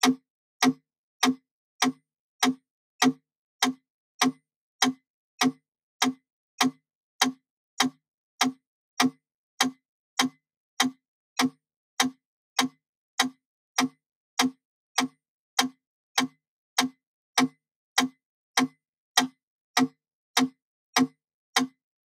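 Wooden mechanical pendulum metronome ticking at 100 beats per minute: sharp, even clicks, a little under two a second, with silence between them.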